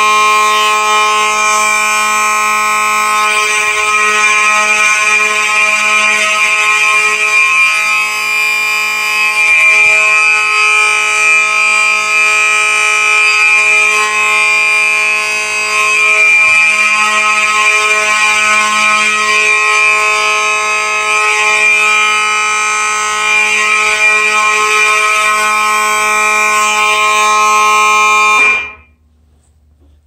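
Gentex GMS electromechanical horn and Gentex SHG electronic horn sounding together on a steady continuous (non-pulsing) fire alarm signal. It is loud, and cuts off suddenly near the end when the system is silenced.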